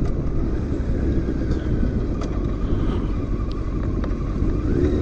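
Honda Fireblade 900 motorcycle riding at steady speed: wind rushing on the microphone over the inline-four engine's drone, the engine note coming through more clearly near the end.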